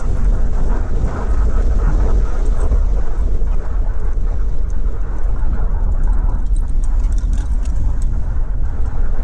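Car driving along the road, heard from inside the cabin: a steady low rumble of engine and road noise.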